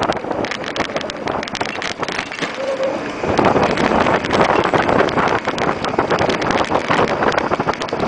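Wind buffeting the microphone of a moving bicycle, with a steady crackle of small knocks and rattles from riding over the pavement.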